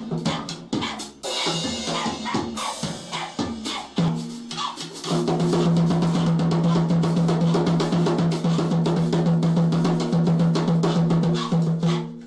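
Drum kit being played: scattered hits on drums and cymbals, then from about five seconds in a fast, continuous run of hits over a steady low tone.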